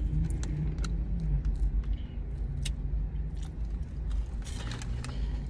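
Chewing on crunchy hot fries, a puffed corn snack: scattered short crisp crunches over the steady low rumble inside a car.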